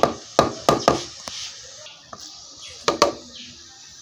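Wooden spoon knocking against the side of an aluminium pot while stirring rice and egg: a quick run of sharp knocks in the first second, then two more close together about three seconds in.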